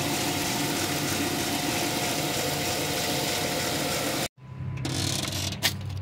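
2006 Dodge Charger engine idling, heard close at the accessory belt and pulleys with a steady hiss over it, while its A/C compressor is seized and not turning. About four seconds in the sound cuts off abruptly, then a quieter low hum follows with one sharp click near the end.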